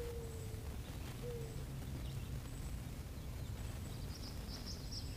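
Quiet lakeside ambience with a steady low rumble. Near the end a small bird chirps in a quick series of short high notes.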